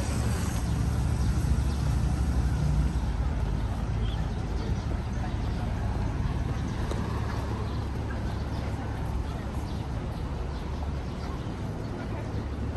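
City street ambience: a steady low rumble of passing road traffic with a general outdoor hum, easing a little toward the end.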